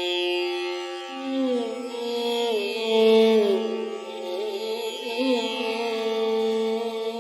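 Carnatic classical music: a melody that slides between long held notes.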